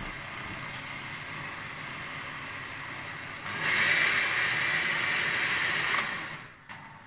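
Electric hand mixer running, its beaters whisking cake batter in a glass bowl. The motor noise steps up and grows louder about three and a half seconds in, then dies away near the end as the mixer is switched off.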